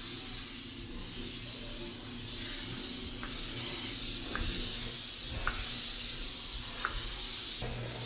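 Shark steam mop hissing steadily as it is pushed over the floor, with a few short faint high squeaks about a second apart in the second half.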